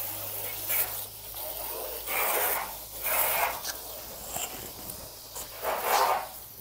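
Garden hose spraying water over a roof and rain gutter to wash off dirt, an uneven spray noise that swells in surges, loudest about two, three and six seconds in.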